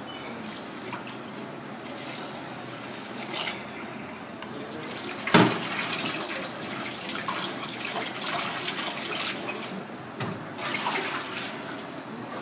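Kitchen tap water running and splashing into a small aluminium saucepan in a stainless-steel sink as pieces of fish are rinsed, with a sharp knock about five seconds in.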